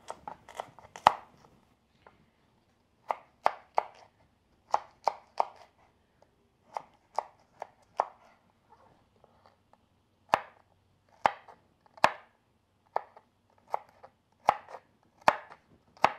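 Kitchen knife cutting raw carrots on a bamboo cutting board: sharp knocks of the blade going through the carrot onto the wood, in short irregular runs with pauses, then about one cut a second near the end as the strips are diced.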